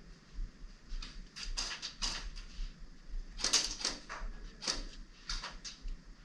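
Scattered sharp clicks and cracks of airsoft guns firing and BBs striking, coming irregularly, often in quick pairs, with the loudest cluster a little past the middle.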